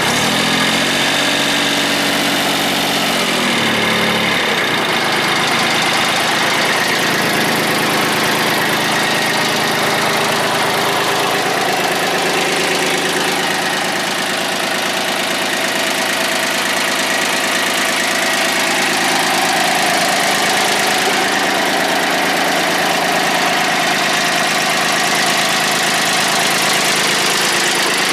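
Mitsubishi MT1601 compact tractor's 19 hp diesel engine running. Its revs rise briefly in the first few seconds and drop back, then it runs steadily at idle.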